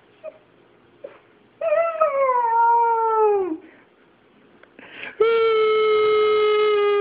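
Two long drawn-out howls: the first about one and a half seconds in, sliding down in pitch over two seconds, the second starting about five seconds in and held nearly level, with a few short faint yelps in the quiet between.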